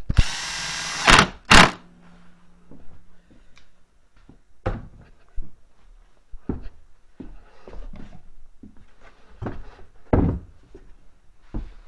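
A power drill runs for about a second, driving a body-panel fastener. Two sharp knocks follow close together, then scattered clicks and knocks of tools and plastic panels being handled.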